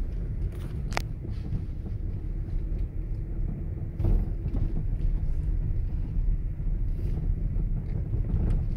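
Steady low rumble of a car driving, with a sharp click about a second in and a thump about four seconds in.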